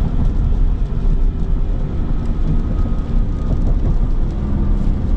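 Cabin drone of a 2025 Ram 1500 pickup with the 3.0 L Hurricane twin-turbo inline-six at highway speed: steady engine and tyre noise on a wet road.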